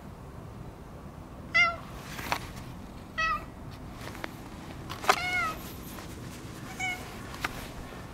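Cat meowing four times, about one and a half seconds apart; the third meow is the longest, rising and then falling in pitch.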